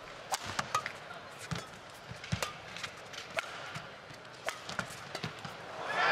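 Badminton rally: sharp racket strikes on a shuttlecock every half second or so, with shoes squeaking on the court, over a murmuring arena crowd. Near the end the crowd swells into a cheer as the point is won.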